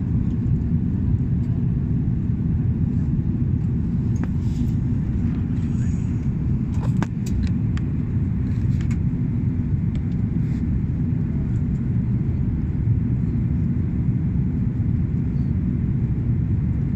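Steady low rumble of an airliner cabin during descent, engine and airflow noise heard from inside, with a few faint clicks around the middle.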